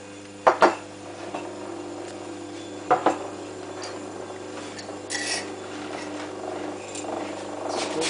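Old refrigerator compressor running as a homemade air compressor, with a steady hum. Two sharp double clinks come about half a second in and about three seconds in, and a short hiss about five seconds in.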